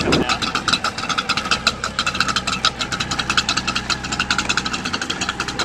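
The engine of a vintage Power-Ski sit-down personal watercraft idling while the craft floats, with a fast, even popping beat.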